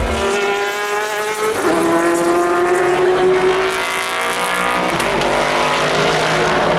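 Racing car engine at high revs, its pitch dropping sharply at a gear change about a second and a half in, then climbing steadily as the car accelerates, with another change near five seconds.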